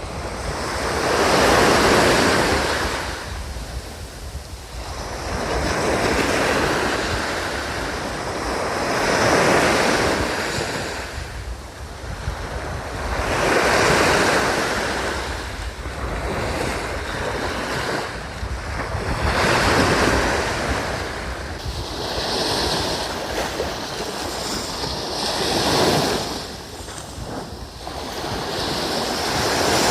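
Surf breaking on a beach, each wave swelling and washing back about every four to six seconds, with wind rumbling on the microphone.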